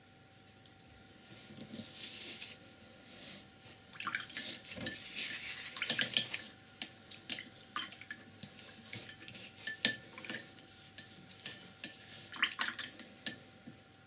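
Paintbrush swished and tapped in a glass jar of rinse water: a soft swish about a second in, then irregular clinks and clatter.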